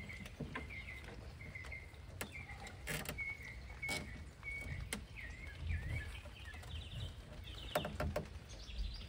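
Nylon zip ties ratcheting as they are pulled tight: scattered sharp clicks at irregular intervals. Birds chirp throughout, over a steady low rumble.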